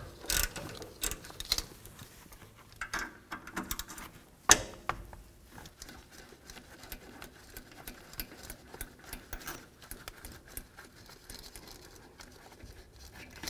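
Ratchet with a 12 mm socket clicking lightly as the caliper bolts are loosened on a Ram 1500's rear brake caliper, with scattered sharper metal clinks, the loudest about four and a half seconds in.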